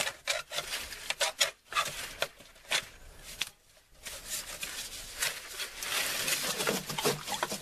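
Corrugated plastic drain pipe being pinched and worked into a hole in a plastic trash-can sump pit: irregular crinkly clicks and scraping of plastic on plastic. There is a brief lull about halfway, then more continuous rubbing.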